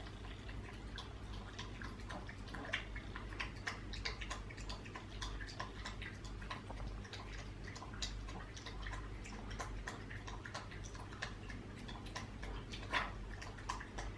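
French Bulldog puppy lapping water from a stainless steel bowl: a quick, irregular run of small wet clicks.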